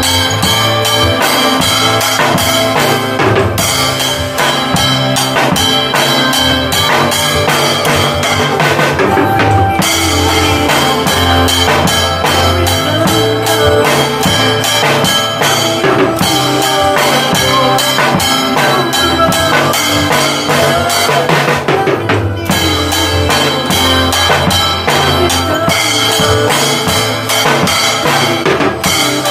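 A small junior drum kit, played with sticks as a drum cover along to a recorded worship song: a steady beat of drum and cymbal hits over the song's band.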